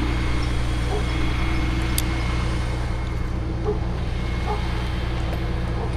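Heavy engine running at a steady idle, an even low drone, with a faint click about two seconds in.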